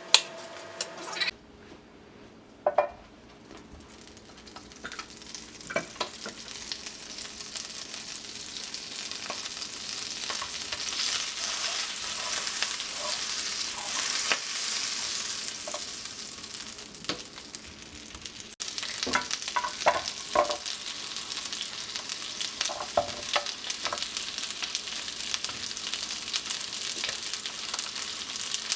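Food sizzling in a hot frying pan, the sizzle building up over the first half, with occasional knocks and clicks of a utensil against the pan.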